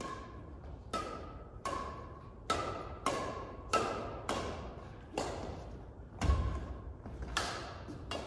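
Badminton rally: the shuttlecock struck back and forth by two rackets, about a dozen sharp string pings roughly every three-quarters of a second. Each ping has a short ringing tone, and the two rackets alternate at slightly different pitches. A heavy thud of a foot landing comes about six seconds in.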